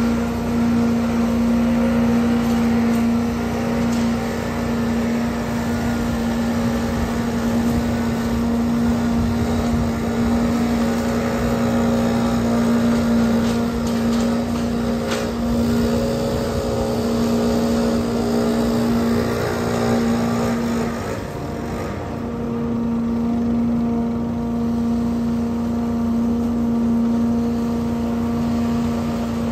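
Trailer-mounted leaf vacuum's gas engine running steadily, sucking up leaves through its wide yellow hose. A gas backpack leaf blower runs alongside it and stops about two-thirds of the way through, leaving the vacuum's steady engine.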